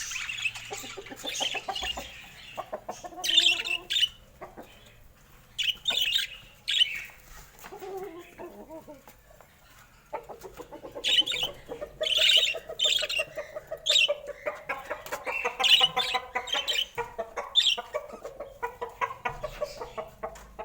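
Budgies chattering: short high chirps throughout, with a lower, rapidly pulsing warble joining about halfway through.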